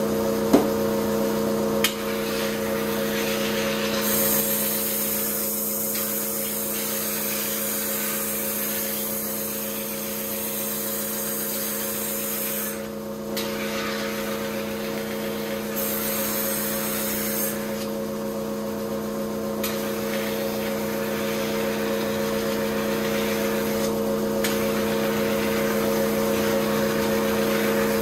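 Kitchen knife being ground on a motor-driven sharpening wheel. The running wheel gives a steady hum, and a grinding hiss comes and goes as the blade is pressed on and lifted off. A couple of sharp clicks come in the first two seconds.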